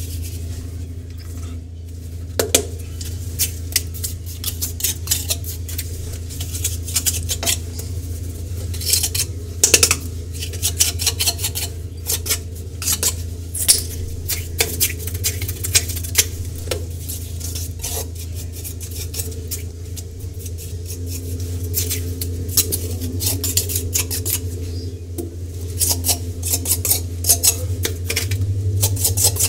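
A mason's trowel scraping and knocking on bricks and cement mortar while bricks are bedded: irregular sharp clinks and scrapes, over a steady low hum.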